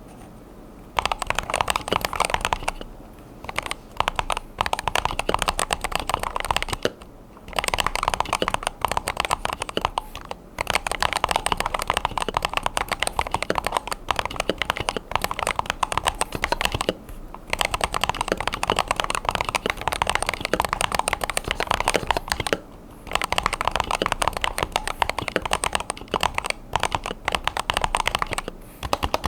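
Fast typing on a Razer Huntsman V3 Pro TKL 8K keyboard with Razer analog optical switches: a quick, continuous patter of key presses. It comes in runs of several seconds, starting about a second in, with brief pauses between them.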